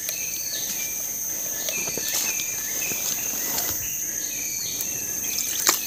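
Insects droning steadily at a high pitch, with rows of short repeated chirps over the top. A couple of sharp knocks come near the end.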